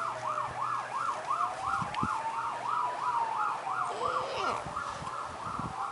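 Emergency-vehicle sirens: one yelping up and down about three times a second, with a second, slower wailing tone gliding under it.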